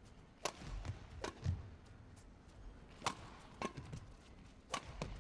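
Badminton rackets striking a shuttlecock in a rally, a series of sharp cracks from about half a second in, with players' feet thudding on the court between shots.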